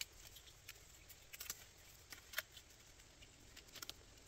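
Faint scattered clicks and rustles of a camera strap being wrapped around a tree trunk and pulled tight to mount a trail camera, the sharpest click about two and a half seconds in.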